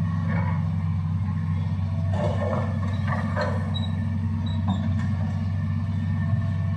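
Hitachi hydraulic excavator's diesel engine running steadily during trench digging, with a few short higher-pitched noises from the working machine about two to three and a half seconds in.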